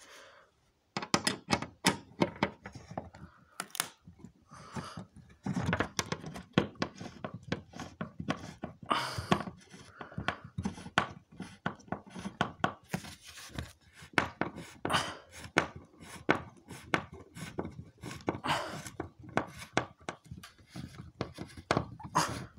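A screw being tightened by hand while an exit sign's mounting board is fitted to the wall: irregular clicks, knocks and short scrapes of the screwdriver and the sign's parts.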